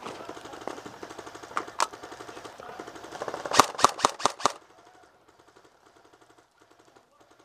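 Airsoft guns firing in rapid automatic bursts, with a quick string of about five louder, sharper shots about three and a half seconds in. After that only faint distant shots remain.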